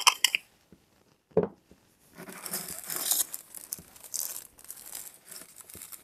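Clear plastic packaging crinkling and rustling as it is handled and opened. Near the start come a few light clicks from the small candle jar being handled, then a single knock about a second and a half in.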